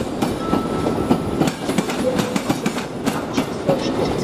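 RegioJet passenger coaches rolling past, their wheels clattering over the rail joints and switches in a quick, uneven run of clicks over a steady rumble.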